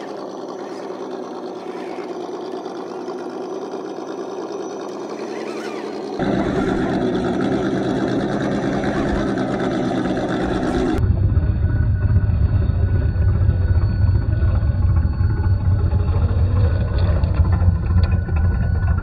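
Radio-controlled scale crawler truck driving over rocks: its electric drive motor and gears running, mixed with the simulated engine sound of its onboard sound kit. The sound changes abruptly about six seconds in and again about eleven seconds in, growing louder and heavier.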